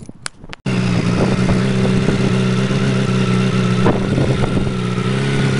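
A couple of light clicks, then a motorcycle engine cuts in abruptly about two-thirds of a second in and idles steadily. Its exhaust has just been patched at the collector box and wrapped, and it is no longer blowing.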